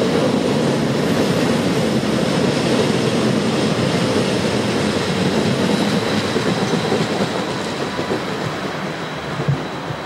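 Electric regional multiple-unit train rolling past close beneath and arriving into the station: a steady rumble of wheels on rail with a thin high whine above it, easing off a little in the last few seconds. A couple of short knocks near the end.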